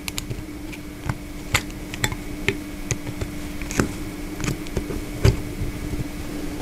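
Light, irregular metallic clicks and taps as a screwdriver tip works at the edge of a small synchronous gear motor's metal housing, over a steady low hum.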